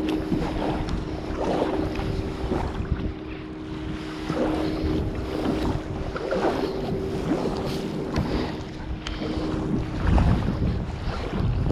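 Kayak paddle strokes splashing in the river, with wind buffeting the microphone and a steady low hum underneath.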